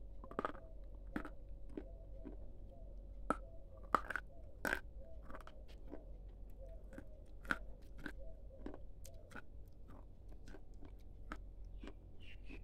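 Close-miked chewing of a crunchy food: irregular sharp crunches, several bigger ones in the first five seconds or so, then softer, sparser chewing crunches.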